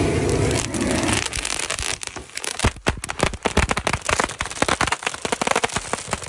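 Fireworks crackling: a dense run of rapid sharp pops and cracks that starts a little over a second in, after a steady rushing noise.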